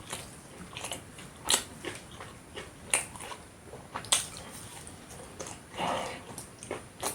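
Close-miked eating: a person biting and chewing a tortilla wrap filled with beef rendang, with a few sharp wet mouth clicks and a brief louder noisy moment near the end.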